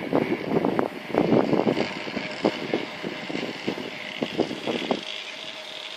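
Irregular rustling and crunching knocks over wind noise on the microphone, thinning out about five seconds in.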